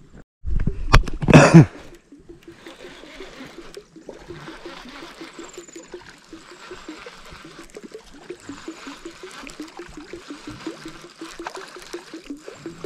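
A few loud knocks near the start, then water gurgling and trickling in a quick, even pulse of about four a second, as a surface lure is worked back across the water.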